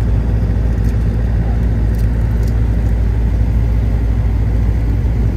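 Loud, steady low rumble of wind buffeting the microphone.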